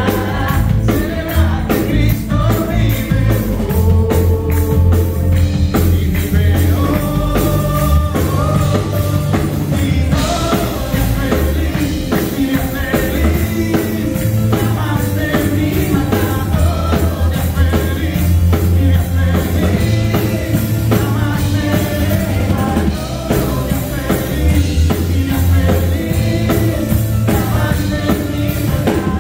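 A live worship band plays a gospel song: a man and a woman sing into microphones over electric guitar, drum kit and keyboard, with a steady beat and strong low bass notes.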